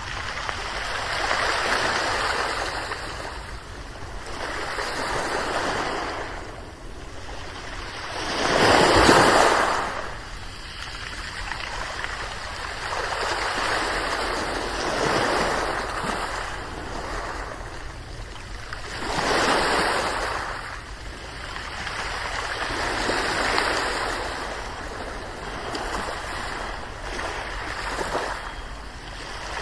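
Ocean waves washing onto a shore, one swell every few seconds; the largest breaks about nine seconds in.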